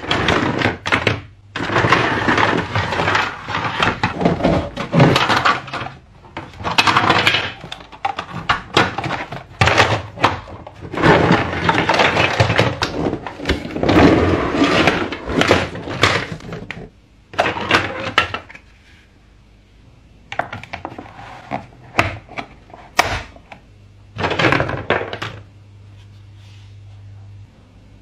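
Cardboard box packaging and plastic wrapping rustling and crinkling as hard plastic toy track pieces are pulled out and knock together. Past the middle the rustling stops and sparser clicks and knocks of plastic parts being handled take over.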